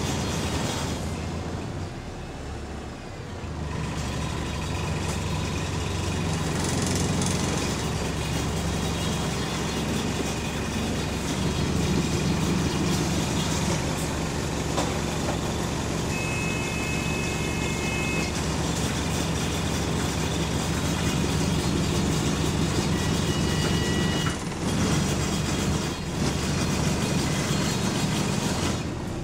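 Interior noise of double-decker bus WS116 on the move: the engine running under heavy rattling of loose panels and fittings. It eases off briefly near the start, and a short high tone sounds about halfway through.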